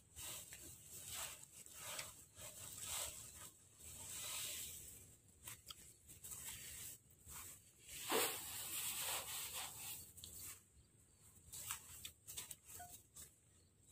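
Faint, irregular strokes and rustling of rice stalks as harvested sheaves are beaten to knock the grain loose (hand threshing), with the loudest stroke a little past the middle.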